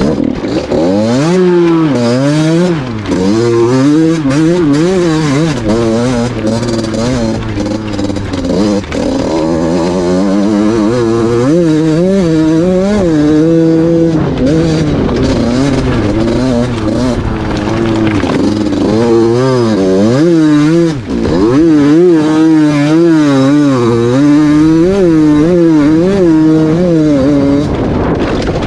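A 50 cc KTM motorcycle's engine breathing through a Valenti trofeo aftermarket exhaust, its throttle worked again and again so that the pitch rises and falls about once a second, with a brief drop about three quarters of the way through.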